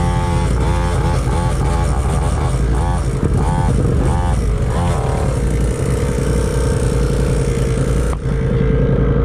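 Small dirt bike engine idling at a stop, a steady drone, with a motorcycle idling alongside; a brief knock about eight seconds in.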